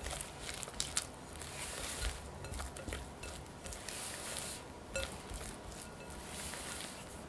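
Silicone spatula folding thick strawberry muffin batter in a glass bowl: irregular wet squishing strokes, with a few light ticks as the spatula meets the bowl.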